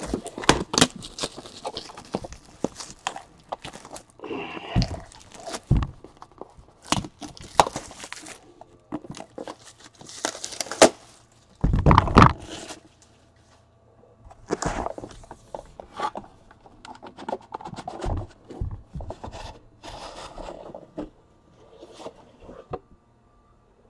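Hands handling and unboxing a Panini Flawless card case: irregular scraping and rustling of the box against the outer carton and table, with scattered clicks and knocks and one heavier thump about twelve seconds in.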